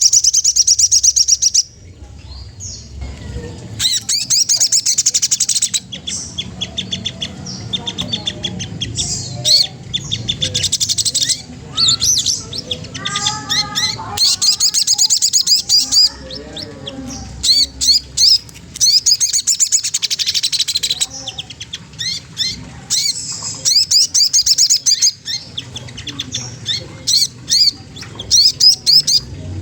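A small songbird, the sogon trotol, singing in loud bursts of rapid, high-pitched chattering notes, each burst about two seconds long with short pauses between. Some lower whistled notes come in around the middle. This is the bird's challenging song, used as a lure to provoke rival birds into singing.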